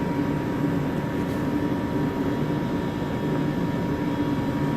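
Steady room ventilation or fan noise: an even rushing hiss with a low hum under it and a faint steady whine.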